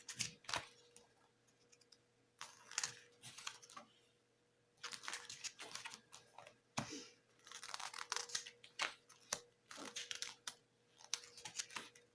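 Pages of a glossy CD box-set booklet being turned and handled: repeated short paper rustles and soft clicks, one every second or two.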